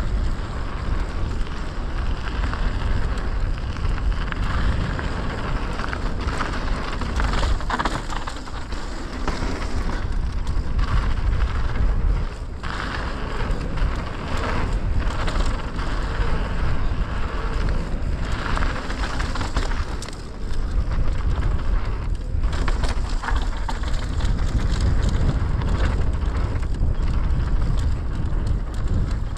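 Mountain bike descending a bike-park dirt trail: tyres rolling and crunching over the ground, with repeated knocks and rattles from the bike over bumps, and wind rushing on the microphone.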